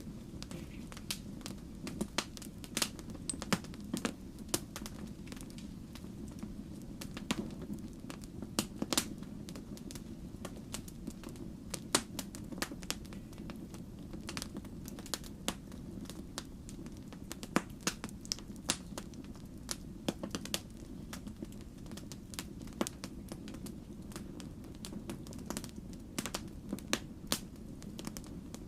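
Log fire crackling, with irregular sharp pops and snaps over a steady low rumble.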